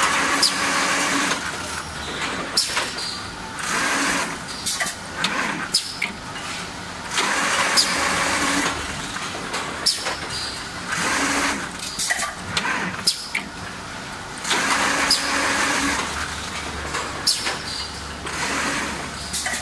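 Automatic protective-film laminating machine running on long profiles: a steady mechanical running noise, with a swell of rushing noise lasting a second or two every three to four seconds and many sharp clicks and knocks in between.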